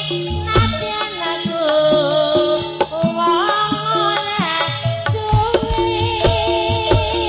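Javanese gamelan music in the pelog scale: held metallic tones and low drum strokes with a wavering melody line above them.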